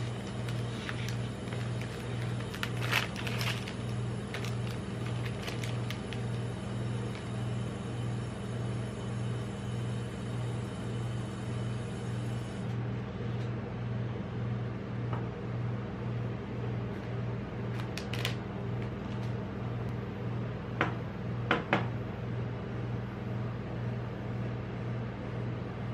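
Steady low hum pulsing about twice a second, from the refrigerated steel pan of a rolled-ice-cream cold plate machine. A plastic ice cream wrapper crinkles a few seconds in, and a few light knocks come later.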